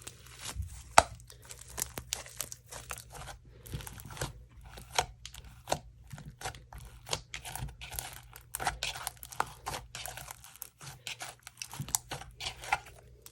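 Hands kneading and stretching slime, making a quick, irregular run of wet clicks and pops, with a sharper snap about a second in.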